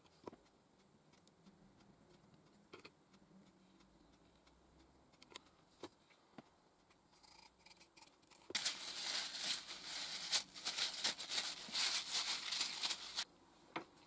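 Epoxy-coated brass pen tube being pushed and twisted into the drilled hole of a walnut pen blank: a scratchy rasping that starts about eight seconds in and lasts about five seconds, after a few faint handling clicks.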